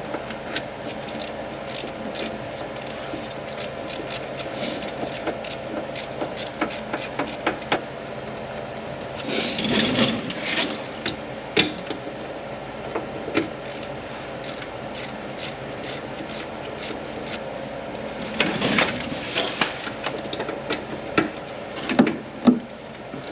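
Hand-tool work on a truck's new front wheel hub bearing assembly: scattered metallic clicks, with two longer runs of rapid ticking, like a ratchet wrench working, about nine and eighteen seconds in.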